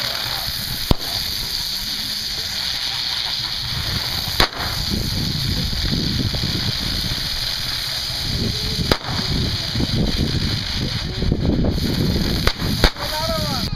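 Ground fireworks fountains hissing steadily as they spray sparks, with single sharp pops every few seconds, two of them close together near the end. A low rumbling noise sits underneath from about four seconds in.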